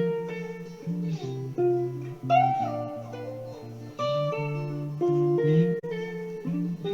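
Guitar music: a plucked melody of single notes over held low notes, with one note sliding upward about two and a half seconds in.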